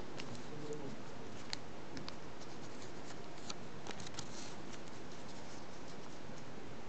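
Origami paper being folded and creased between the fingers: a few scattered sharp little ticks and faint rustles of paper over a steady hiss.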